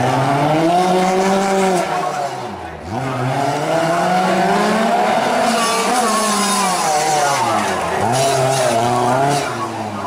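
Rally car engine under hard throttle, its pitch rising and falling as the car is driven through a tight chicane, with sharp dips about three seconds in and again near the end as the driver lifts off.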